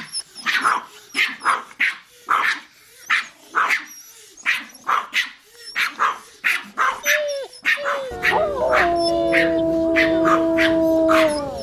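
A small dog yapping repeatedly, about two short, sharp barks a second. About two-thirds of the way in, a steady, unchanging tone comes in under the barks over a background hiss and stops shortly before the end.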